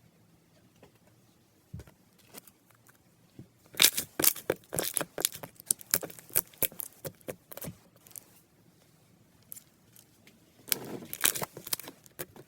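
Slime being worked by hand, giving a run of sharp, sticky clicks and pops from about four to eight seconds in, then a denser crackling stretch near the end.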